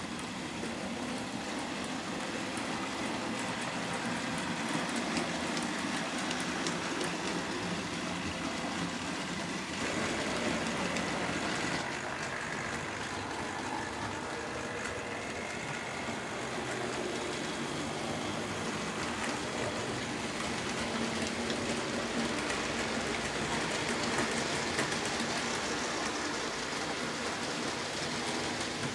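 Vintage OO gauge model trains running on the layout: a steady, dense rattle of metal wheels on track with fine clicks, and the whirr of small electric motors.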